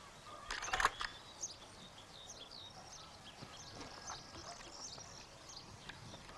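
A short run of sharp plastic clicks about half a second in, as the lever of a View-Master stereo slide viewer is worked. Then faint, scattered bird chirps over quiet outdoor air.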